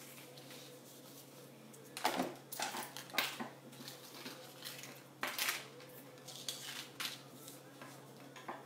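Small hard objects clinking and clattering as they are handled and picked up, in a handful of separate knocks spread over several seconds, over a faint steady hum.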